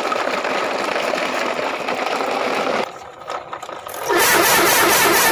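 Truck engine running, dropping away briefly about three seconds in and coming back louder about a second later.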